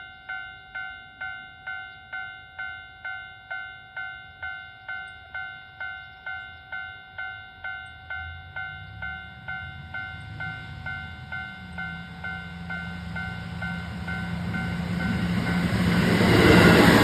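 Japanese level-crossing warning bell ringing steadily about twice a second. Over it, a two-car diesel railcar train (KiHa 150 and KiHa 40) comes closer, its engine and running noise growing louder until the train reaches the crossing near the end and drowns out the bell.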